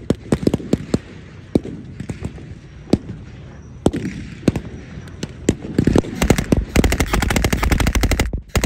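Blank gunfire in a battle re-enactment: scattered single shots and short volleys, then about six seconds in a long, rapid machine-gun burst lasting about two seconds, the loudest part.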